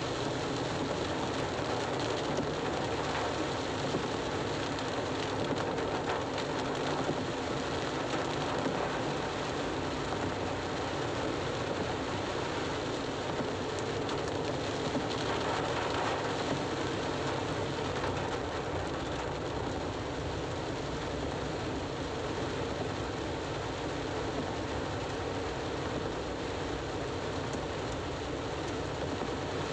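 Steady noise of rain falling on a moving car, mixed with tyres on the wet road, heard from inside the cabin.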